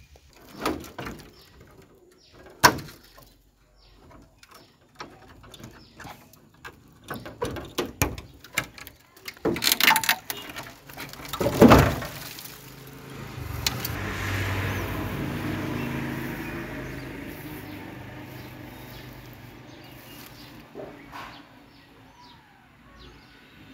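Handling noises from an old car's hood being opened: scattered knocks and rustling, then a loud metal clunk about twelve seconds in as the hood is raised. After that a broad noise swells and slowly fades over several seconds.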